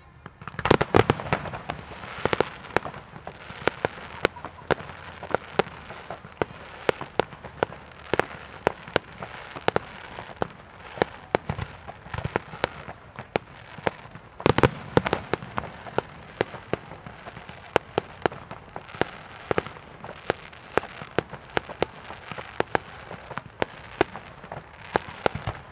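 Fireworks display: a continuous barrage of sharp bangs and pops from bursting aerial shells, several a second. The heaviest volleys come about a second in and again about halfway through.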